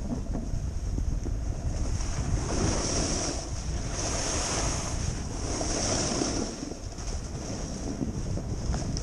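Wind buffeting a helmet-mounted microphone as a snowboard slides down a groomed piste, with the board scraping over the snow in hissing swells that rise and fade every second or two through the turns.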